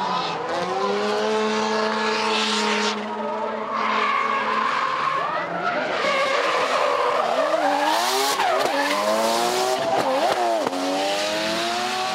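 RE Amemiya D1 Mazda RX-7 (FD3S) with a three-rotor turbo rotary engine drifting, its revs held high and then rising and falling quickly as the throttle is worked. The tyres squeal and skid, loudest about eight seconds in.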